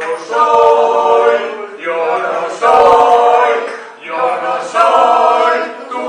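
Choir singing long held chords in phrases that break off about every two seconds.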